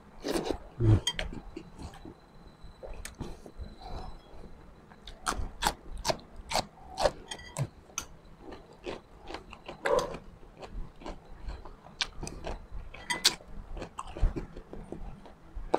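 Close-miked chewing: a run of irregular sharp crunches and mouth clicks from someone eating.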